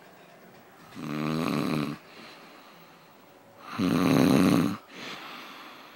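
A person snoring: two snores about three seconds apart, each lasting about a second, the second louder, with quiet breathing between.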